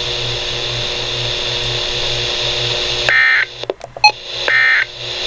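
Weather radio receiver hissing steadily with a low hum. About three seconds in come two short warbling data bursts about a second and a half apart, with a few clicks between them: the EAS/SAME end-of-message tones that close the weekly test broadcast.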